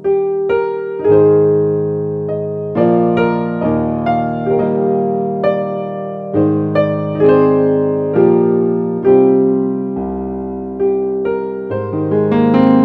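Keyboard music with a piano sound: single notes and chords struck one after another, each fading before the next.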